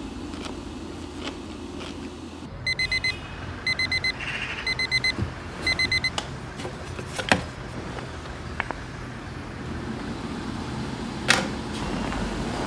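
Electronic beeping from a space heater's control panel: five quick clusters of about four short high beeps, with a couple of sharp clicks later and a steady low hum underneath.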